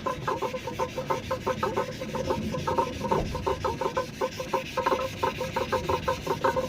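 Cast-iron air compressor head being hand-lapped back and forth on wet 280-grit sandpaper over a flat marble plate, in quick rhythmic strokes several times a second. The head is being resurfaced flat so it will seal after a blown head gasket.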